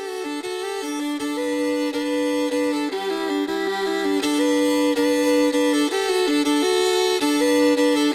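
Background music: a fiddle playing a lively melody, often sounding two notes at once.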